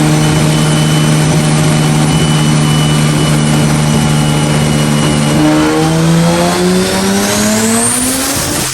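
Mitsubishi 3000GT's turbocharged V6 engine held at steady revs, then revving up smoothly in a rising pull over the last three seconds, with a high whine climbing with it.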